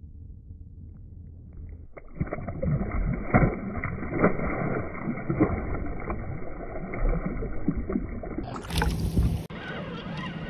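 Water sloshing and splashing, heard muffled with the microphone at or below the surface, as a quillback rockfish is released by hand underwater. It is quiet at first and turns busy about two seconds in. Near the end there is a short, bright, clear burst of water noise, then a softer, open noise.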